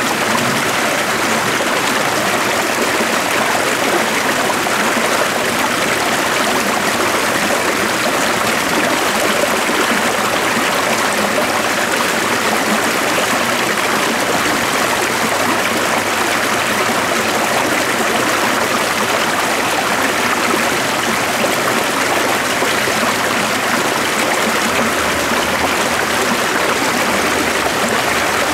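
Stream water flowing steadily, an even rushing and trickling that doesn't change.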